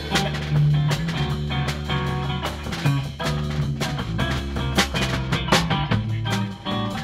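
Live instrumental rock jam: a guitar and an electric bass guitar playing together over a drum kit, with steady drum hits and sustained bass notes.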